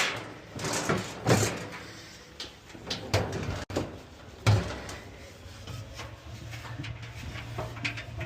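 Sheet-metal clunks, knocks and scraping as a clothes dryer's drum is handled and set back into the cabinet, with a handful of sharp knocks in the first half and quieter handling after.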